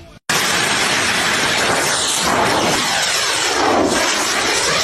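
Turbine engine of an RC jet aircraft in a low, fast pass: a loud, steady rushing roar that starts suddenly just after the start, with a sweeping shimmer in pitch that dips and rises again as it goes by.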